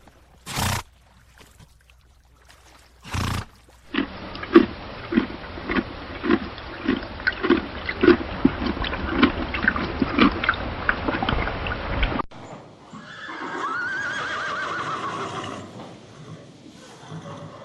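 Horse sounds in sequence: two short loud blows near the start, then about eight seconds of regular hoofbeats a little under two a second, then after a sudden cut a horse whinnying with a rising and falling pitch.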